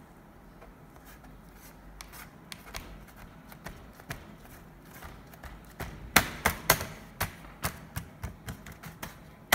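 Hands handling a laptop's plastic bottom case: faint scattered clicks, then from about six seconds in a run of sharp clicks and taps, about two a second.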